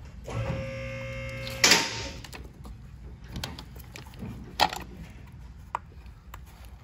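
Hands working plastic wiring-harness connectors and a screwdriver on top of an engine: a loud clack about 1.7 seconds in, then a few sharp clicks. A brief steady hum at the start.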